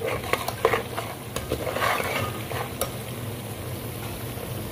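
A metal spoon stirring and scraping around a pot of cream being rendered into desi ghee, with irregular clicks of the spoon on the pot over a steady sizzle of the mixture frying in its own butterfat as the milk solids dry out.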